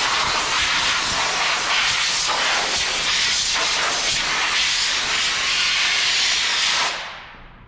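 Compressed-air blow gun hissing steadily as it blows dust out of a vacuum pump's cylindrical air filter from the inside. The air stops about seven seconds in and the hiss tails away.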